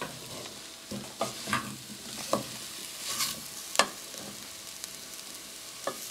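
Soy mince with diced potato and carrot sizzling steadily in a pan while being sautéed, with a spoon stirring and scraping against the pan several times.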